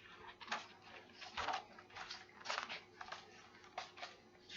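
Faint rustling and crinkling from a picture book being handled, as if opened and its pages turned, in short irregular strokes a few times a second.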